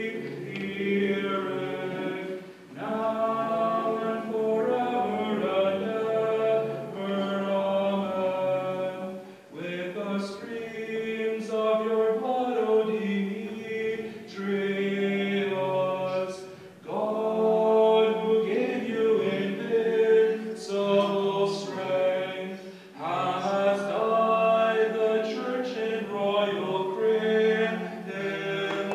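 Unaccompanied group singing of Byzantine-rite liturgical chant in a Ukrainian Catholic church, voices together in about five long sustained phrases with brief pauses between them.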